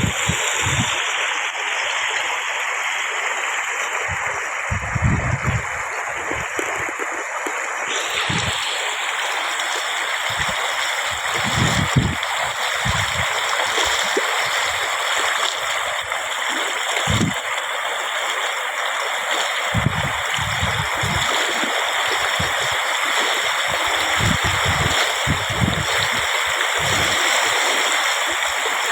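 Rain floodwater rushing and gurgling in a steady stream, with short, irregular low rumbles underneath.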